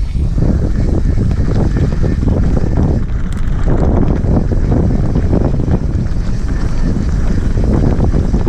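Loud wind buffeting an action camera's microphone, mixed with the rumble and many small knocks and rattles of a mountain bike riding fast over a rough forest trail.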